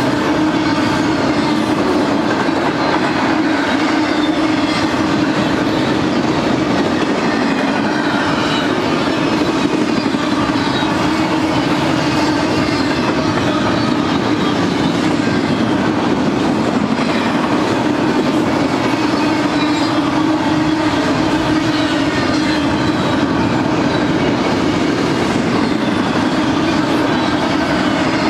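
Double-stack container train rolling past: the steady rumble and clatter of loaded well cars' wheels on the rails.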